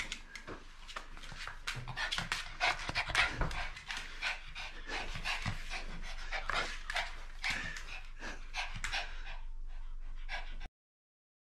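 Papillon dog panting fast and hard with excitement before a walk, with quick taps of its paws on the wooden floor as it bounces on its hind legs. The sound cuts off suddenly near the end.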